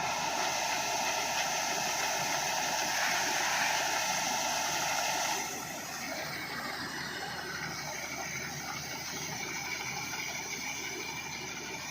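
Wheat harvesting machine running with a steady hissing noise, which drops in level about five and a half seconds in.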